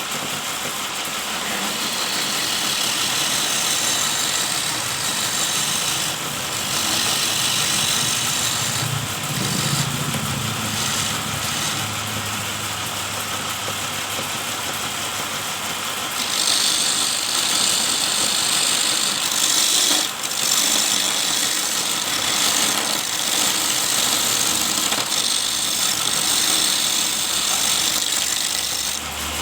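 Homemade wood lathe driven by an electric motor, running steadily with a loud hissing noise that changes in strength several times and grows louder a little over halfway through.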